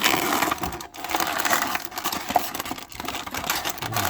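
Plastic packaging crinkling and clicking in a rapid, irregular run as an action figure is pulled and worked loose from its plastic tray.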